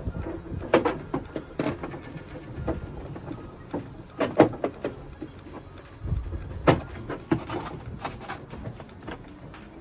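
Irregular knocks, taps and clicks of a clip-in window tint panel being handled and pushed into place against the glass and trim inside a car, with a few louder knocks among quieter handling noise.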